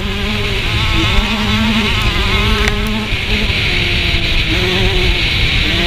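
Dirt bike engine running at speed, heard on board, its pitch wavering and dipping briefly a few times as the throttle comes off and on.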